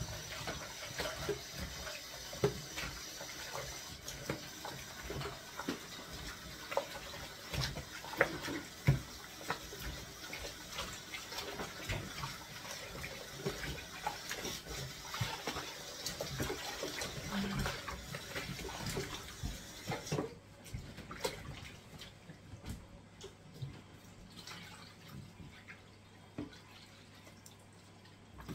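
Kitchen tap running into a sink with scattered knocks and clatter as chicken pieces are washed, until the tap is shut off about twenty seconds in. After that come only dripping and a few small knocks.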